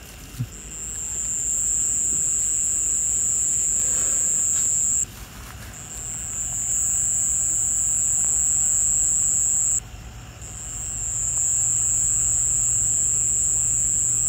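Insect song: a loud, steady high-pitched trill that breaks off briefly three times, about 5 s in, about 10 s in and just at the start, and swells back up after each break.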